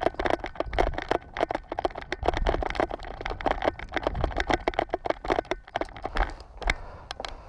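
Quick, uneven footfalls of a person running on dry dirt and gravel, several steps a second; after about six seconds they thin out to a few sharp clicks.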